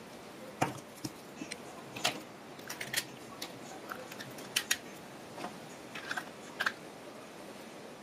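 Irregular small clicks and taps of hard plastic parts being handled: pushbuttons and a knob fitted into a machined black nylon control-pendant housing. About a dozen sharp clicks, unevenly spaced, over a faint hiss.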